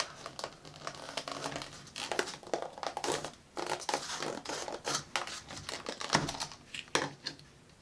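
Crumpled paper and a thin clear plastic deli cup crinkling as they are handled, with irregular crackles that stop shortly before the end.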